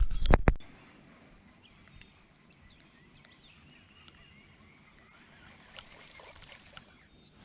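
A quick cluster of sharp knocks at the start, then quiet outdoor background with faint, high bird chirps.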